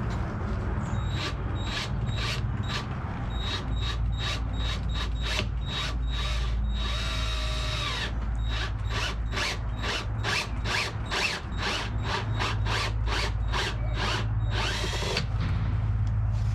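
Power drill run in quick short bursts, about two or three a second, with two longer steady runs partway through and near the end, drilling holes in a motorcycle tour pack.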